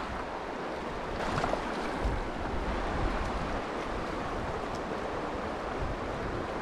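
Shallow mountain river flowing over a rocky bed: a steady rush of water.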